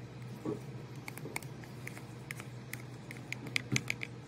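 Plastic spoon scraping and tapping against a small plastic cup as a thick neem oil and dish-soap mixture is scraped out into a plastic sprayer tank: a run of light clicks and ticks that come quicker toward the end, over a faint steady hum.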